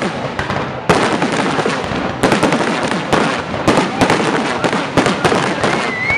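Aerial fireworks shells bursting in a dense barrage: sharp bangs every second or so over a continuous crackle of burning stars.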